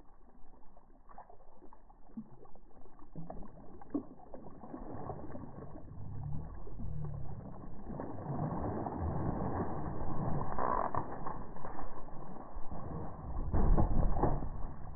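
Water splashing and sloshing as a big longnose gar thrashes in a landing net at the side of a small skiff, with knocks and creaks as the net is worked and hauled over the side. It grows louder through the second half and is loudest near the end.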